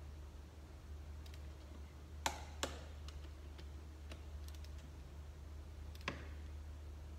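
Click-type torque wrench on cylinder head bolts: sharp clicks, two in quick succession about two seconds in and one more near the end, as each bolt reaches its set torque of around 28 newton metres, with a few faint ticks between.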